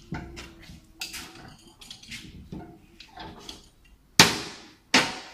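Hand tools clinking and tapping on a bare engine block while the crankshaft main bearing caps are fitted and tightened, in irregular small metallic clicks. Two loud ringing metal clangs come about four and five seconds in.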